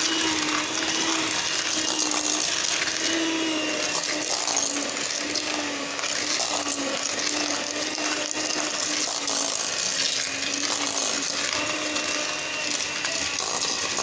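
Electric mixer running steadily, beating cake batter of butter, sugar and milk in a bowl, its motor pitch wavering slightly under the load.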